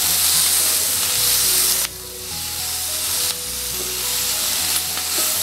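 Sliced onions, capsicum and karonda sizzling in hot oil in a non-stick kadhai over a medium flame, stirred with a wooden spatula. The sizzle dips briefly about two seconds in, then picks up again.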